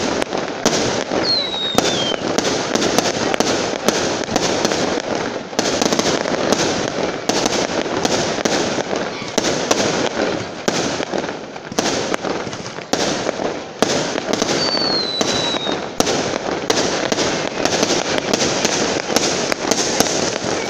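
Aerial fireworks display, with shells bursting in rapid, continuous succession, several bangs a second over a constant rumble. Two short falling whistles cut through, about a second in and again about 15 seconds in.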